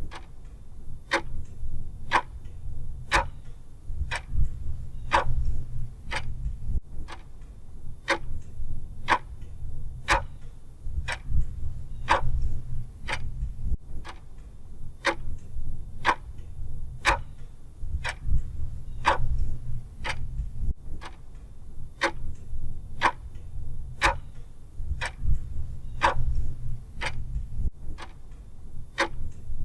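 Mechanical clock ticking steadily at about two ticks a second, the ticks alternating louder and softer in a tick-tock.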